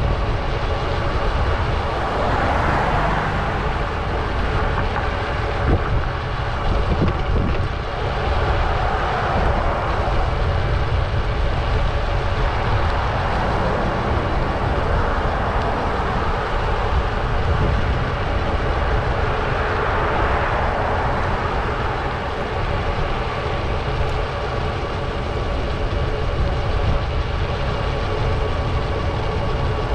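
Steady street noise heard from a moving bicycle: a heavy, even rush of wind on the microphone and road noise, with vehicles swelling past now and then.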